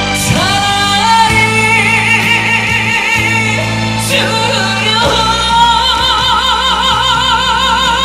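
A man singing through a microphone over a band backing track, holding two long notes with a wide, even vibrato; the second long note begins about four seconds in.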